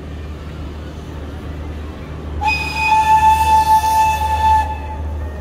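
Steam whistle of the V class 4-4-0 compound locomotive No.85 'Merlin' blown once for about two seconds about halfway through: a single steady hissing note that slides up briefly at the start and cuts off sharply. A low steady rumble of the approaching train runs beneath it.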